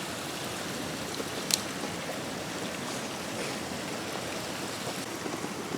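Steady rushing noise like running water, with one sharp click about a second and a half in.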